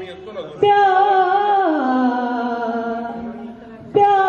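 A woman singing long held notes into a microphone: the held note slides down to a lower pitch and fades away, then she starts a new phrase near the end.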